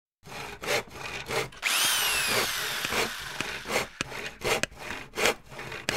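Workshop tool sounds: rasping strokes about twice a second, and about two seconds in a power tool's whine that falls in pitch over a second or so.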